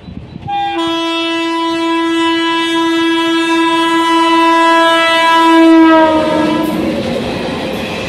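Electric locomotive horn sounding one long blast as the train approaches, opening with a brief higher note and growing louder. About six seconds in, its pitch drops slightly as it passes. The horn then fades into the rumble and clatter of the coaches rolling by.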